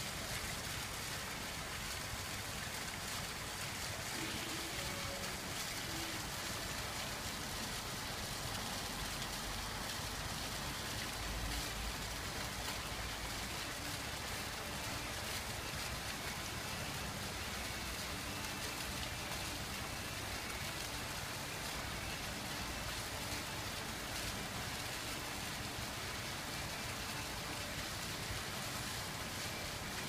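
Steady splashing of a rock fountain: water jets rising among upright flagstone slabs and falling back onto the stone.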